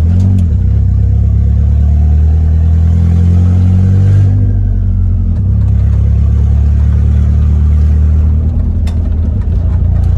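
1996 Nissan Hardbody pickup engine under way, pulling up through the revs for about three seconds, then dropping sharply just after four seconds in and running on steadily. The truck has a freshly fitted stage 2 clutch.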